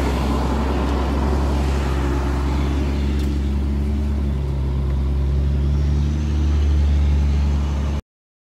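Heavy diesel engine running steadily, a deep even hum with a slight swell late on. It cuts off suddenly near the end.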